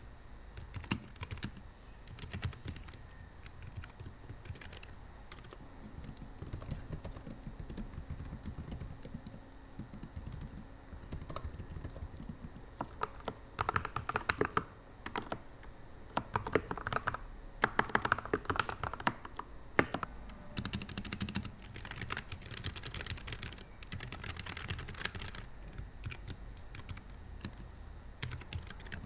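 Typing on a Dustsilver D84 mechanical keyboard: a continuous run of soft key clicks, with denser, faster flurries of keystrokes in the middle and again in the second half.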